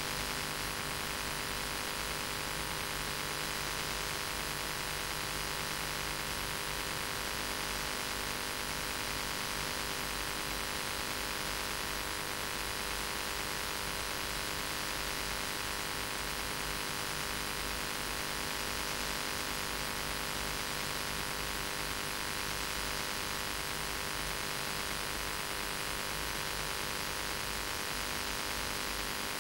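Steady electrical hum and hiss, a dense set of unchanging tones over even noise, with no speech audible.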